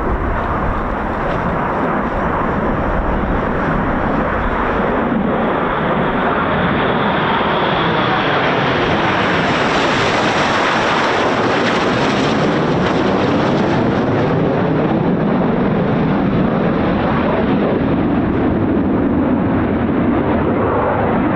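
BAE Hawk T1 jets flying past with loud, continuous jet-engine noise that grows sharper toward the middle, where they pass closest, then eases as they move away.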